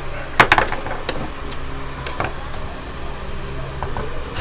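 Hard plastic clicks and knocks as a portable radio's plastic cabinet is handled and pried apart, loudest in a quick cluster about half a second in, with a few lighter clicks after. A steady hum from a running electric fan lies underneath.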